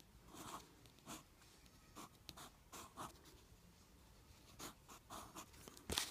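Wooden pencil scratching on paper in a series of short, faint strokes, the loudest one near the end.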